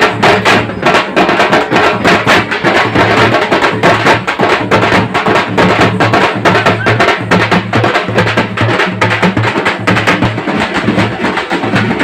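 Loud, fast drum-led festival music for a street procession: rapid, steady drumbeats, with a low tone that pulses on and off underneath.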